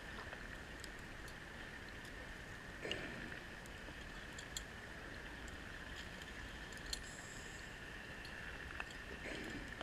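Muffled underwater ambience heard through a camera housing: a faint steady hiss with scattered sharp clicks, and a diver's breath through a rebreather swelling softly about three seconds in and again near the end.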